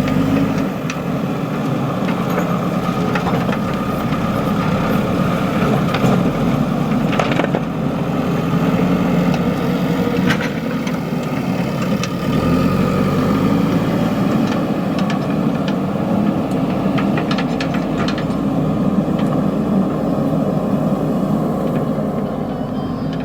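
JCB 3DX backhoe loader's diesel engine running steadily, its low note shifting as the load changes, with scattered knocks and scrapes from the work.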